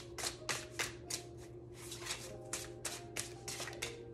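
A deck of Neo Rider tarot cards being shuffled between the hands: a steady run of soft card flicks and slaps, about three or four a second.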